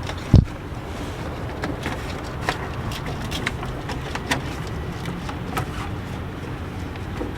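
Eight-cylinder engine idling with a steady low rumble, a single loud thump about half a second in and scattered light clicks over it.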